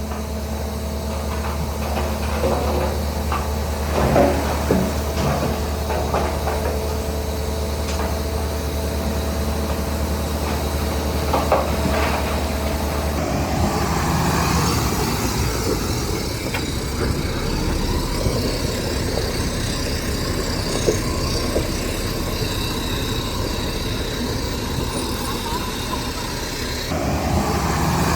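Heavy diesel construction machinery running, with metallic clanks and knocks in the first half. About halfway through, the steady engine drone gives way to a rougher, noisier running.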